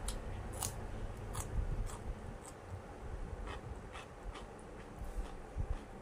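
A person chewing raw cucumber with the mouth closed: a series of short, crisp crunches, roughly one or two a second, over a low mouth rumble.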